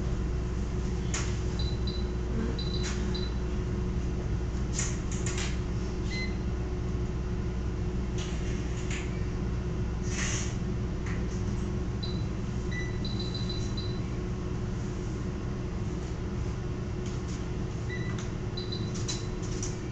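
Veterinary patient monitor giving short high electronic beeps in quick runs of three to five every few seconds, with a lower single beep now and then, over a steady low hum of equipment. Occasional faint clicks and rustles of handling.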